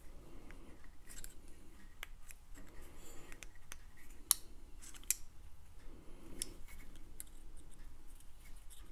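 Steel half-round pliers bending a thin copper strip into a D shape: small metallic clicks and ticks as the jaws grip and release, with soft handling rustle. The sharpest clicks come about four and five seconds in.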